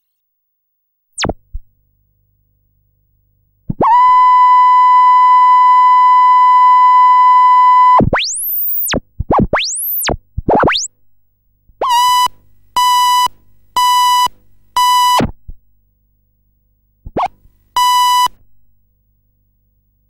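Electronic tones: a short falling sweep, then a steady high beep held for about four seconds, then quick rising-and-falling pitch sweeps, then four short beeps in a row and a last beep near the end.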